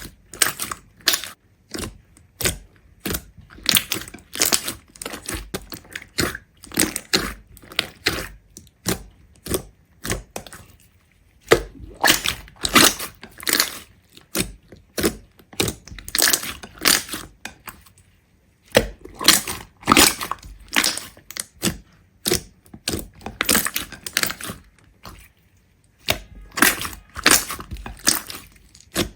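Many short, sharp cracking and crunching sounds in quick irregular clusters, with brief pauses between the clusters.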